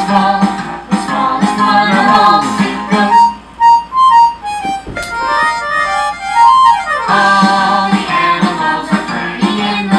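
Background music with a steady beat. About three seconds in the beat drops out for a break of single notes and sliding, gliding tones, and the beat comes back about seven seconds in.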